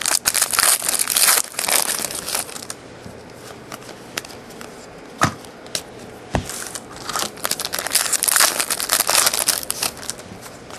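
Trading-card pack wrapper crinkling and tearing as a pack of 2009 Upper Deck SP Authentic football cards is opened and handled. It comes in bursts for the first couple of seconds and again about two-thirds of the way in, with a couple of sharp clicks between.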